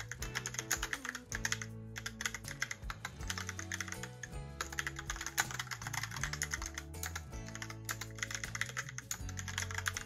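Typing on a Logitech POP Keys mechanical keyboard: quick runs of key clacks from its round typewriter-style keycaps, broken by brief pauses about two, four and seven seconds in, with soft background music underneath.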